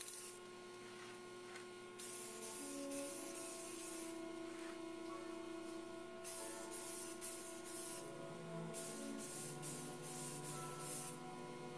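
Rust-Oleum grey primer aerosol spray can hissing in bursts as model parts are primed: one burst of about two seconds, then a run of shorter bursts in the second half. A steady low hum runs underneath.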